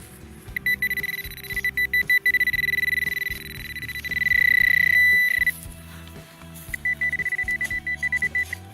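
Handheld metal-detecting pinpointer probe beeping in a high tone. It pulses rapidly, runs into a continuous tone that swells for a couple of seconds, then drops back to rapid beeps: the probe is signalling a metal target, a coin, close to its tip in the hole.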